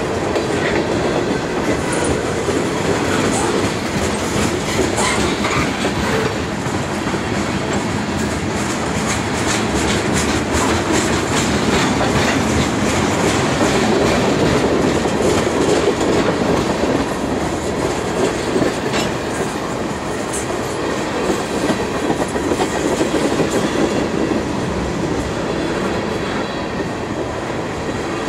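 Freight train cars, covered hoppers and tank cars, rolling past, their steel wheels on the rails making a steady rumble. Short clicks come over the rail joints, thickest around the middle.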